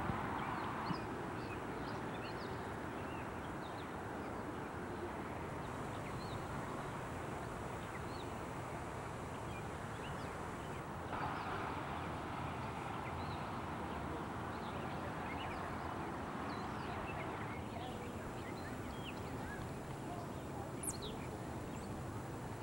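Outdoor ambience: birds chirping in short, scattered calls over a steady hiss, with one quick rising call near the end.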